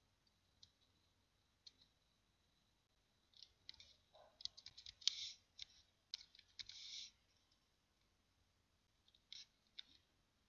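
Faint computer keyboard keystrokes. There is a quick run of typing for a few seconds in the middle and a shorter burst near the end, with a few scattered clicks before.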